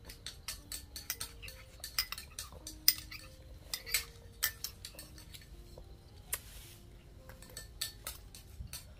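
A spoon clinking and scraping against a bowl as a small child eats: many quick, irregular taps, the sharpest about three seconds in.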